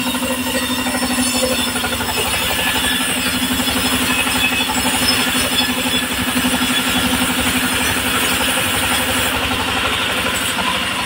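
Engine-driven circular sawmill running, with the engine's steady drone throughout. From about two seconds in until shortly before the end the blade is cutting along a log, adding a harsh, rasping saw noise.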